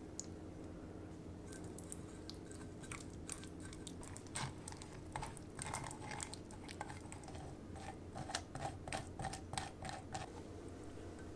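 Red silicone spatula pressing and scraping raspberry jam through a stainless-steel wire-mesh strainer: irregular scrapes and clicks that start a second or two in and come thickest in the second half. Under it is a steady low hum.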